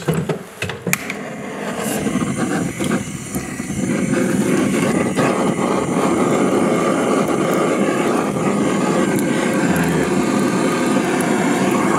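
Handheld gas blowtorch burning, with a few sharp clicks at the start. The flame noise builds over the first four seconds, then holds steady and loud.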